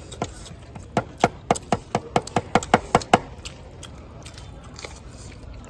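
A quick run of about ten sharp crunches, roughly four a second, from about a second in until just past three seconds: crisp food being bitten and chewed close to the microphone.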